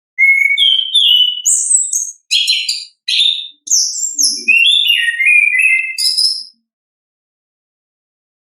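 Chestnut-capped thrush (anis kembang) in full song: one fast, varied phrase of high whistled notes, slurs and short buzzy trills lasting about six seconds, then it stops.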